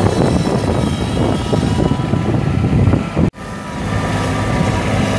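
Kubota 1.6-litre three-cylinder diesel engine of a compact tractor running steadily as the tractor drives. The sound cuts out abruptly a little over three seconds in and returns at once, running on more evenly.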